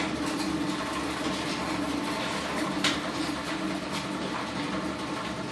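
Garage door opener running, its motor and drive hauling the door with a steady hum and one sharp click about three seconds in.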